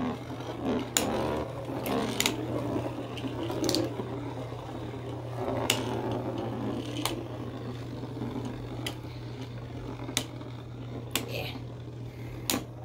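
Two 3D-printed Beyblade spinning tops whirring as they spin on a plastic stadium floor, with sharp clicks about nine times as they knock into each other.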